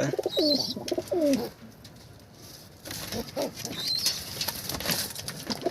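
Domestic pigeons cooing, a few falling coos in the first second and a half, then rustling and wing flaps from about three seconds in, with a few short high squeaks.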